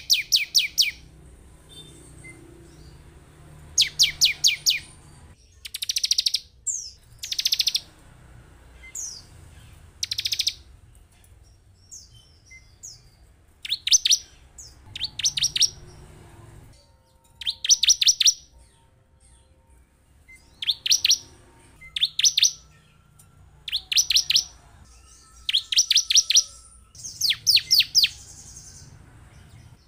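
Bar-winged prinia (ciblek) calling: short bursts of rapid, sharp, high-pitched repeated notes, about one burst every two seconds.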